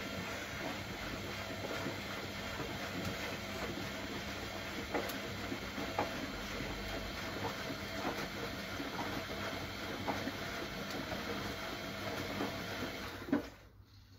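Siemens Siwamat Perfecta SL washing machine running on its delicates cycle, a steady hiss with a low hum and scattered light clicks. It cuts off abruptly with a knock near the end.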